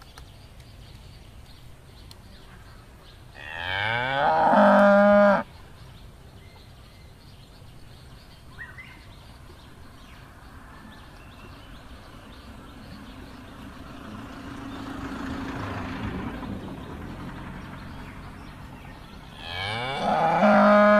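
A cow mooing twice, about fifteen seconds apart. Each moo is a long, loud call of about two seconds that rises in pitch at the start and then holds steady.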